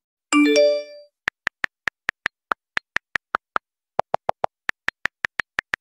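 A short musical note sounds just after the start, then a phone rings with rapid, evenly spaced short high beeps, about five a second, in runs broken by brief pauses.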